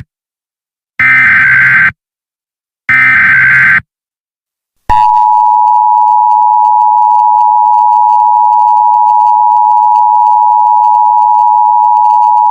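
Emergency Alert System tones: the last of the SAME header's data bursts, each a harsh buzzy squawk about a second long with a second's gap between; the tail of one at the very start, then two more. About five seconds in comes the steady two-tone EAS attention signal, a loud held dual-pitch beep.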